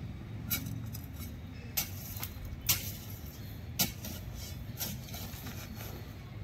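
Dry, gravelly soil with small stones being handled and dropped on a concrete floor: about six sharp clicks and light knocks, the loudest about two and a half seconds in, over a steady low rumble.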